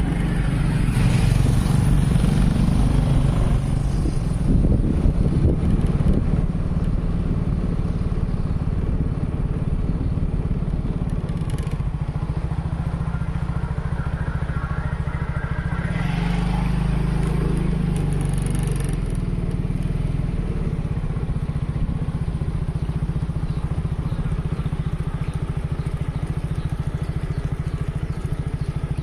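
Small motorcycle engine running steadily as it is ridden, louder and rougher for the first six seconds or so.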